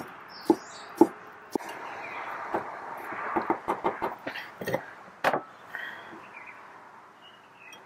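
Chef's knife chopping fresh parsley on a wooden cutting board: single knocks about every half second, then a quicker run of taps a few seconds in with one louder knock, growing quieter near the end.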